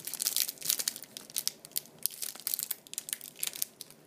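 Thin plastic wrapper around Yu-Gi-Oh promo cards crinkling and tearing as it is pulled open by hand: a rapid run of irregular crackles that thins out near the end.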